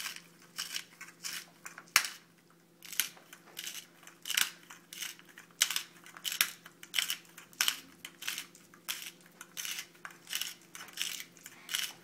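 Hand pepper mill grinding peppercorns: a series of short grinding strokes, about two a second, as the mill is twisted back and forth. There is one sharp click and a brief pause about two seconds in.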